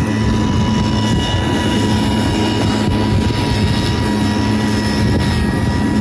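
Einhell GE-CM 18/30 Li cordless battery lawn mower running, its electric motor and blade giving a steady whine with a constant high tone over a low rumble.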